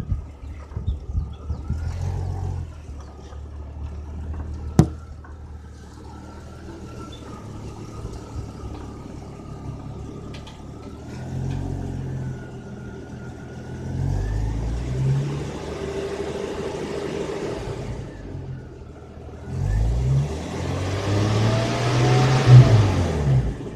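1987 Jeep Cherokee XJ engine running, with a thin, wavering high-pitched squeal above it, and revved up twice in the second half, each rev bringing in a hiss. A single sharp click comes about five seconds in.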